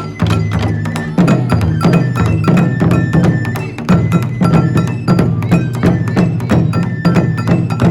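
Music with fast, closely spaced percussion strikes over steady pitched notes.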